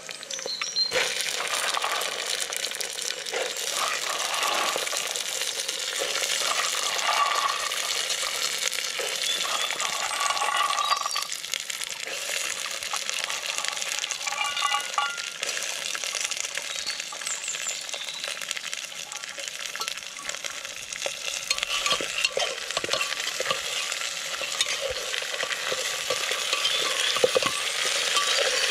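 Food frying in a hot pan with a steady sizzle while it is stirred.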